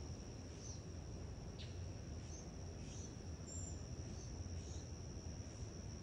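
Insects trilling steadily, one continuous high-pitched tone, with a few faint short chirps over it and a low background hum.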